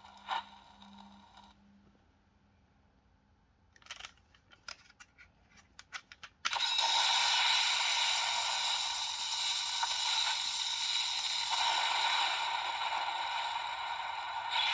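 Plastic clicks of a Gokai Saber toy sword's buttons being pressed, then, about six and a half seconds in, the toy's speaker starts a long, loud electronic sound effect that holds steady to the end.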